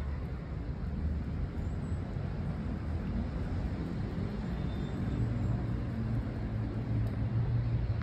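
Steady low rumble of road traffic, with an engine drone growing a little stronger over the last three seconds.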